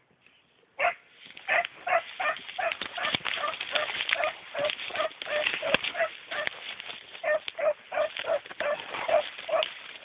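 Beagle hounds baying in a steady run of barks, about two to three a second, starting about a second in: hounds giving tongue on a rabbit's trail. Twigs and brush crackle throughout.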